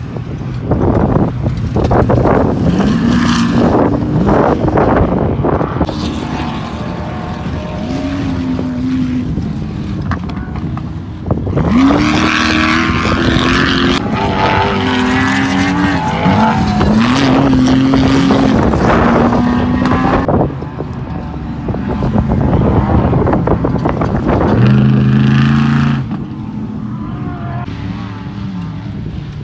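Off-road race car engine revving hard, its pitch climbing in each gear and dropping at each shift, again and again. Loudest about halfway through and again near the end.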